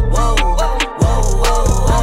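Hip hop music with deep bass and a steady drum beat.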